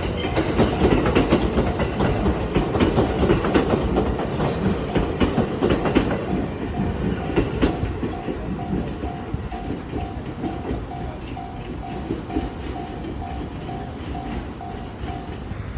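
A JR West train rolls over the level crossing, its wheels clacking over rail joints, loud in the first half and then fading as it moves away. Throughout, the level-crossing warning bell rings steadily at about two strokes a second.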